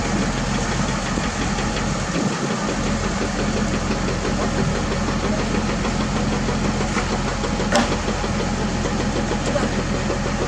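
Heavy diesel engine running steadily, with a single sharp click about eight seconds in.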